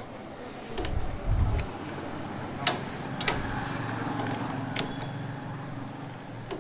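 Hand tools working the four-slot clutch nut of a Hero Deluxe engine as it is tightened: a low rumble about a second in, then a few sharp metal clicks, over a steady low hum.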